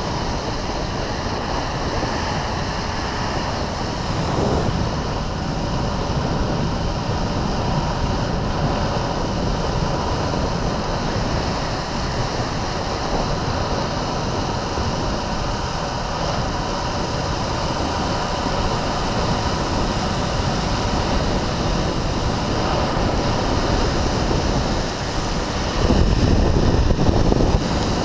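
Steady rush of wind over the microphone mixed with longboard wheels rolling on asphalt during a fast downhill run. The rumble grows louder and lower in the last couple of seconds.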